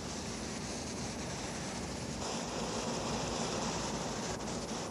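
Boat engine running with a steady drone under wind and sea hiss; the hiss grows a little stronger about two seconds in.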